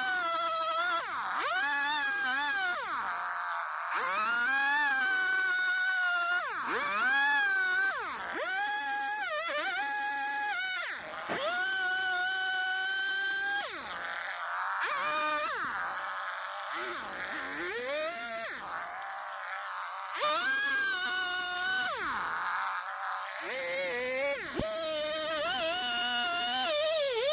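Small two-stroke carving chainsaw cutting into a log, revved up and down over and over, its pitch rising and falling every second or two with short drops back toward idle.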